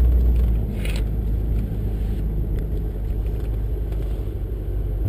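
Supercharged 6-litre V8 of a VE Commodore ute running steadily at low revs, a deep even rumble, with a short click about a second in.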